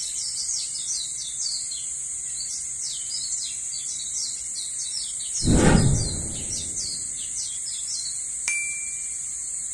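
Birds chirping continuously over a steady high hiss. About five and a half seconds in there is a loud, brief noise that fades out, and a small click near the end.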